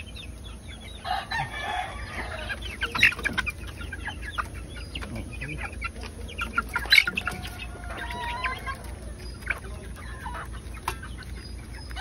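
Hens clucking in short calls, with a few sharp clicks and knocks among them.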